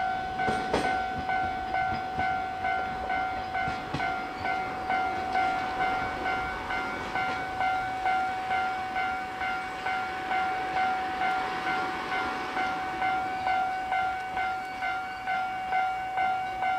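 Japanese level-crossing warning bell ringing in an even, rapid pulse, about three strikes every two seconds. A few sharp clacks sound in the first second, from the slowly moving train.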